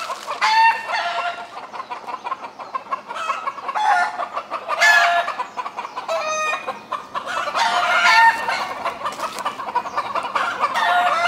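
Chickens calling in a group: a rooster crowing among repeated, overlapping clucks and calls.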